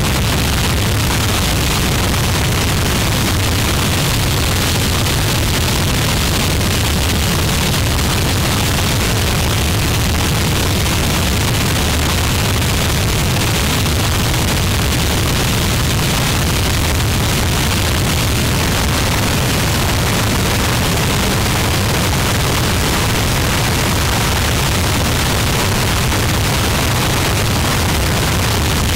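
Harsh noise music: a loud, unbroken wall of distorted noise that does not change, with a heavy low rumble under a layer of hiss.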